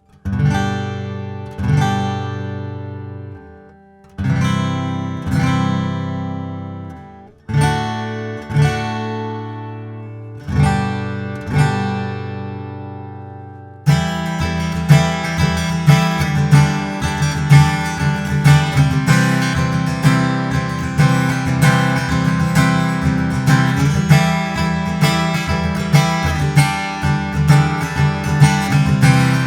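Taylor 918e Grand Orchestra acoustic guitar being played. For the first half, full chords are strummed and left to ring out and fade. From about halfway in, it switches to a steady, busier strumming rhythm.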